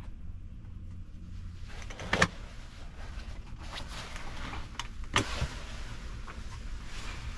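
A fabric curtain being pulled along its rail, the runners sliding and scraping, with two sharp clicks about two and five seconds in, over a steady low hum.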